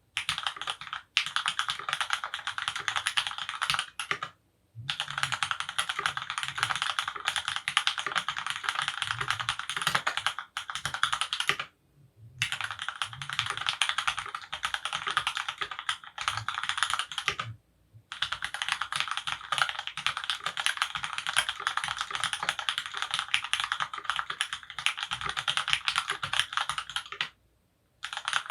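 Typing on a Monstargear XO K80 Alu keyboard with lubed Cherry MX Black hyperglide linear switches on an aluminium plate, dampened with thinsulate. Rapid, continuous keystrokes come in long runs, broken by four short pauses.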